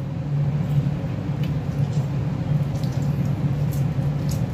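Steady low hum, with a few faint, short wet squishes as lemon halves are squeezed by hand over raw chicken pieces in a steel bowl.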